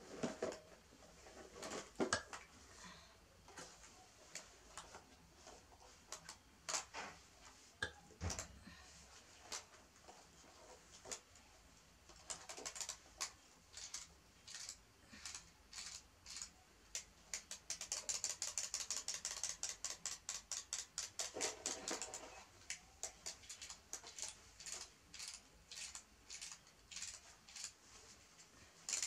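Scattered knocks and rustles of a cardboard box being handled and opened, then the clockwork mechanisms of small wind-up toy chicks ticking rapidly and regularly in runs as they are wound and set going.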